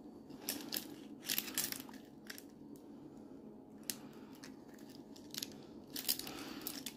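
Small metal clicks and scrapes of a pick working inside an ASP handcuff lock, irregular and in short clusters, with the cuffs' steel chinking now and then.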